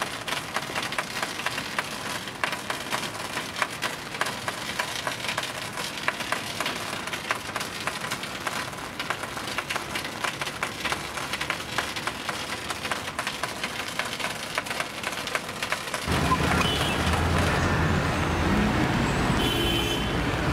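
Rain pattering close by, a dense run of small drop ticks. About sixteen seconds in it gives way to the low rumble of street traffic on wet roads.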